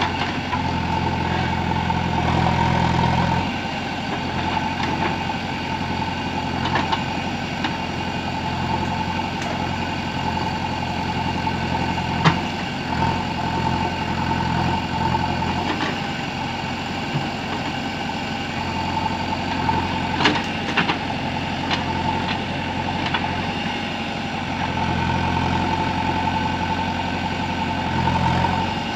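JCB 3DX backhoe loader's diesel engine running steadily while the backhoe arm digs, heavier and louder for a few seconds at the start and again near the end. A few sharp clanks come through around the middle.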